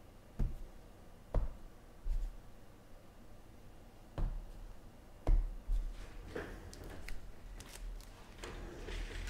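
Light knocks and thumps on a tabletop, about six in the first six seconds, then soft rustling: trading cards and packs being handled and set down.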